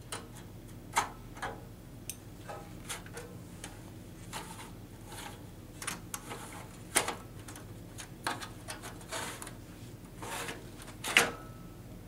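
Clicks, knocks and short sliding scrapes as the slide-out tray of a Corning CCH-02U rack-mount fiber housing and its cable clips are handled. The loudest knocks come about 7 seconds in and again near the end.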